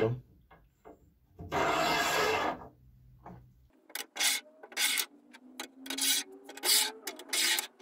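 Linear ball-bearing blocks sliding along the steel rail of a homemade lathe bed, metal rubbing on metal. One long rasping stroke, then a run of short back-and-forth strokes with a faint whir from the bearing balls.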